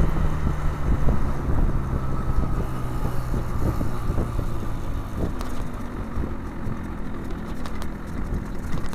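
Yamaha RX-King two-stroke single-cylinder motorcycle engine running steadily at low revs through an aftermarket Abbox C20 exhaust, its pitch easing down slightly.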